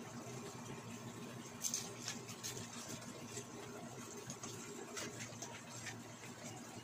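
Meat frying in a pan, with scattered pops and crackles over a steady low hum.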